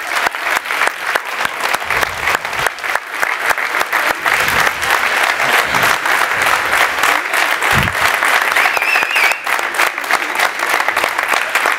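A large audience clapping steadily, many hands at once.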